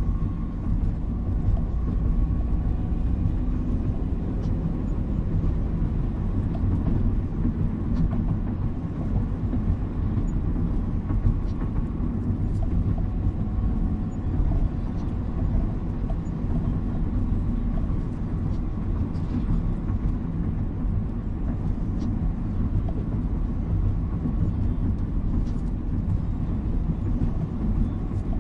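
Steady low rumble of a car driving along a rain-wet street, heard from inside the cabin.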